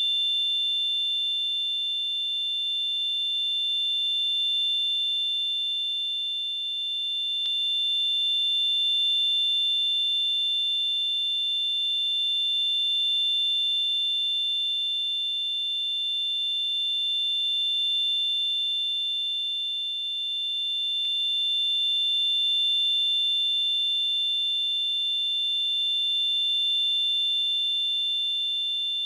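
Tinnitus sound effect: a steady high-pitched ringing made of two close tones, with fainter lower tones underneath, slowly swelling and easing in loudness.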